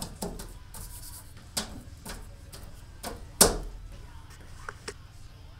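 Hands patting and rubbing charcoal-covered paper on a wooden table: several sharp pats, the loudest about three and a half seconds in, and a short paper rustle about a second in.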